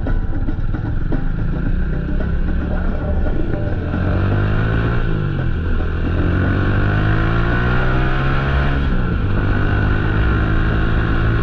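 Motorcycle engine under way: the revs drop about four seconds in, climb steadily for a few seconds, then fall suddenly near the nine-second mark, as at a gear change, and hold steady.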